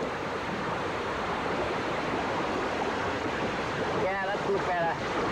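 Steady rush of water and wind around a 470 sailing dinghy under way, with wind noise on the microphone. A brief voice sounds twice near the end.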